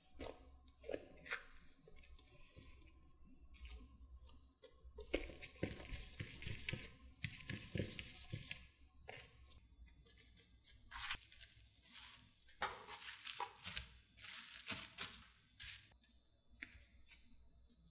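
Hands kneading and rounding soft yeast bread dough on a silicone baking mat, folding it in and pressing out the gas: irregular bursts of sticky squishing and rubbing.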